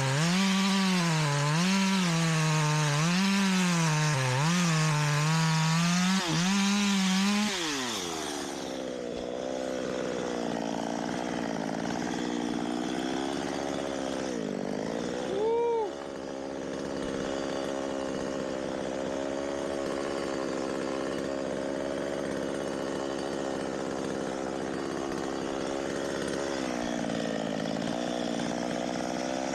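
Two-stroke chainsaw running at full throttle and cutting wood, its pitch wavering up and down as the chain takes load, then dropping to idle about seven seconds in. It idles steadily after that, with one short blip of the throttle about halfway through.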